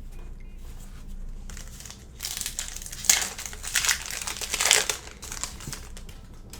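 Plastic foil wrapper of a Panini Revolution basketball hobby pack crinkling as it is torn open. The crinkling begins about two seconds in, has its loudest peaks over the next three seconds, then fades to light rustling.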